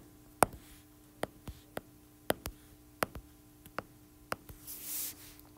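A stylus tip tapping and clicking on an iPad's glass screen while writing: about a dozen sharp, irregular ticks, with a faint steady hum underneath and a soft hiss near the end.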